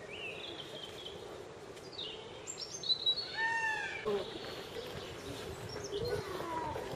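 Birds chirping and calling outdoors: many short chirps and whistled glides, with a louder call about three and a half seconds in.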